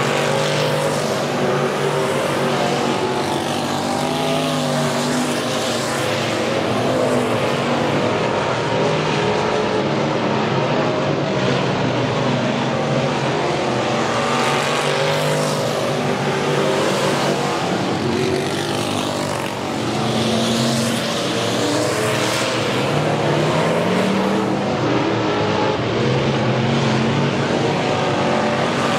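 Several dirt-track stock cars racing around the oval, their engines revving up and falling back continuously, with a rushing sweep every few seconds as cars go by.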